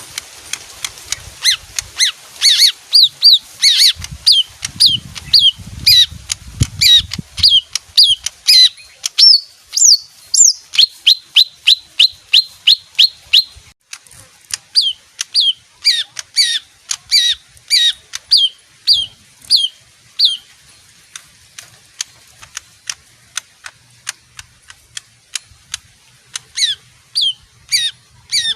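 Leafbird (green songbird) singing a fast series of sharp, down-slurred notes, about three a second, with a few rising notes in the middle; the song thins to scattered notes in the last third, then picks up again near the end.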